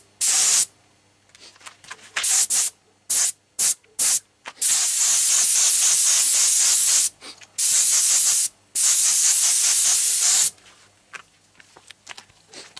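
Pneumatic paint spray gun hissing as 2K primer is sprayed in trigger bursts: several short squirts at first, then three longer passes of one to two and a half seconds each, stopping about two seconds before the end.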